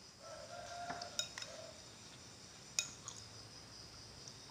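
Metal spoon clinking and scraping against a glass soup bowl as food is scooped up: a few sharp clinks, the loudest near three seconds in. A brief faint hum sounds in the first second and a half.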